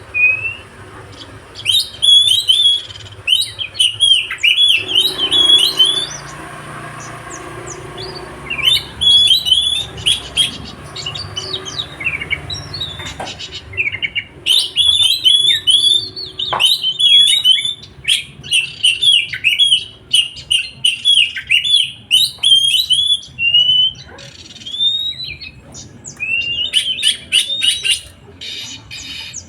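A songbird singing in fast, chattering phrases of quick up-and-down notes, in several bursts with short pauses between them.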